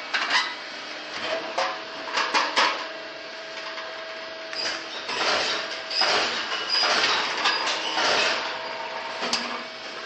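Tube expanding and crimping machine for aluminium ladders at work: sharp metal clanks and knocks, then several noisy rushes about a second long, over a steady hum that comes and goes.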